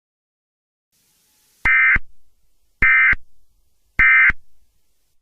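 Emergency Alert System end-of-message signal: three short, identical bursts of SAME digital data tones, about a second apart, marking the end of the alert.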